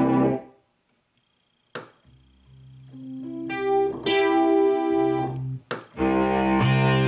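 Rhodes Chroma analogue polyphonic synthesizer playing demo notes. A held chord fades out, and after a short silence and a click, notes swell back in and build to a loud sustained chord about six seconds in.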